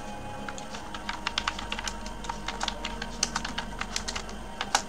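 Typing on a computer keyboard: a few scattered keystrokes, then a quick, dense run of key clicks from about a second in.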